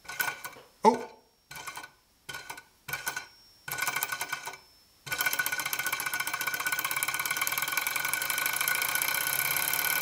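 Small model Stirling engine being flicked into motion: several short bursts of spinning that die away, then about five seconds in it catches and runs steadily with a fast mechanical rattle. The rattle comes from the flywheels, not the pistons, and a drop of oil might cure it.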